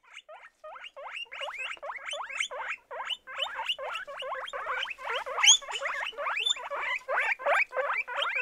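Guinea pigs squeaking: a rapid run of short rising squeaks, about four or five a second, with one louder, higher squeal about five and a half seconds in.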